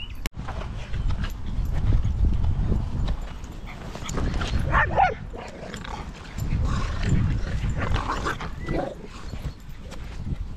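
A dog giving short whining cries around the middle, over a steady low rumbling noise.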